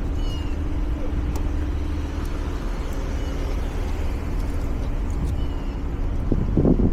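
A steady low mechanical hum, like a motor running, with a few faint high chirps, and a louder rustling burst near the end.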